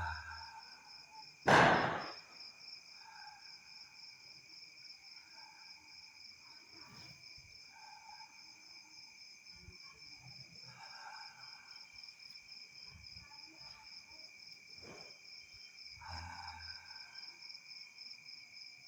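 Crickets trilling steadily in the night, a fast pulsing chirr with a second steady tone beneath it. About a second and a half in, one sharp firecracker bang rings out and dies away within about half a second.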